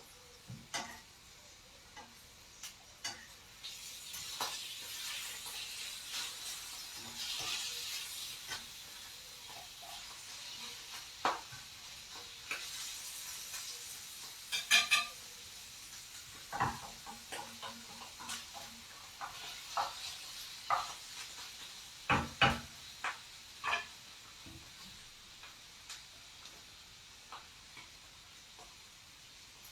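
Food sizzling in a frying pan while a utensil stirs, scrapes and knocks against the pan. The sizzle swells and fades a few times. The loudest clatters come about halfway through and again about three quarters of the way through.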